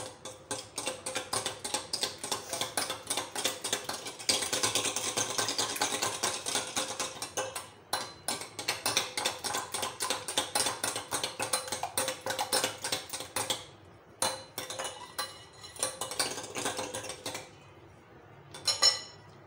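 Metal hand whisk beating eggs in a glass bowl: a fast run of clinks and taps of the wire against the glass, with a couple of brief pauses. The beating stops near the end, followed by a short clatter.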